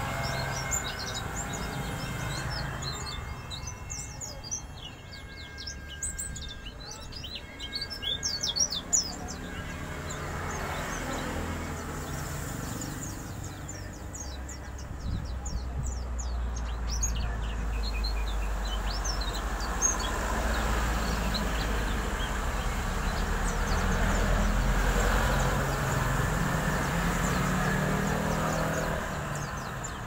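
Caged white-eye (pleci) giving a rough, fast twittering of short high chirps (ngeriwik), busiest in the first ten seconds and again around the middle. A low steady rumble underlies the second half.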